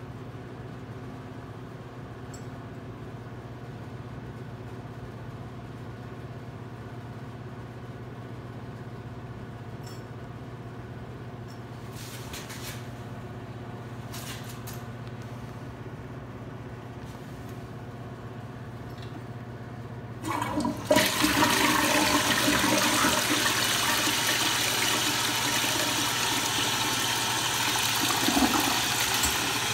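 A steady low hum for about twenty seconds, then a 2004 Crane Plumbing Galaxy toilet is flushed: a sudden loud rush of water swirling into the bowl that keeps going.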